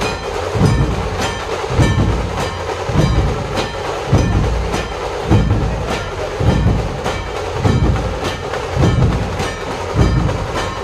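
Dhol tasha pathak playing a steady rhythm: deep dhol beats about once a second under a fast, even rattle of tasha stick strokes.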